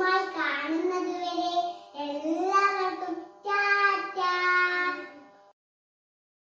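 A young girl singing a short tune in a high voice, with several long held notes, cutting off suddenly near the end.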